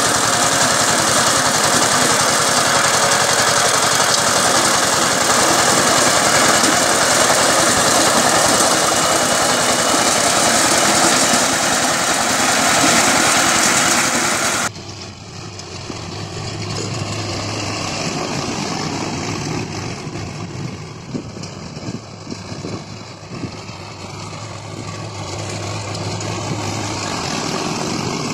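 Two-wheel power tiller's diesel engine running steadily and loud under load as it tills soil. About halfway through, the sound cuts to a quieter, lower, steady drone of a four-wheel diesel tractor pulling a rotary tiller.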